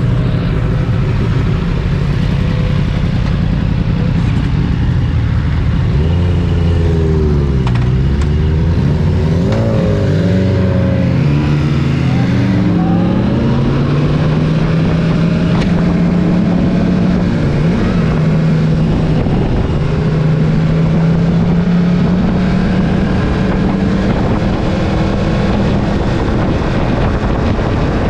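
Motorcycle engine running under way. Its note dips and rises several times about six to twelve seconds in, with more than one engine tone overlapping, then settles into a steady note.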